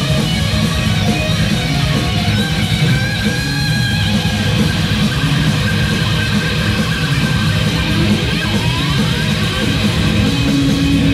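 Heavy metal band playing live: distorted electric guitars over bass guitar and pounding drums, with sustained guitar notes and a short rising guitar slide about eight seconds in.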